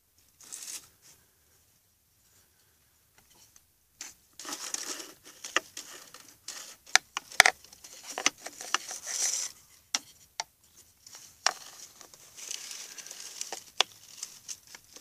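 A small rodent scrabbling and rustling through dry leaves and debris among stones: irregular crackling and crinkling with several sharp clicks, starting about four seconds in after a nearly quiet opening.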